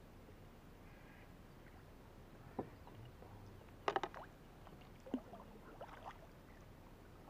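A cast fishing lure landing in the water with a short splash about four seconds in, among a few light knocks and clicks, over a quiet, steady background.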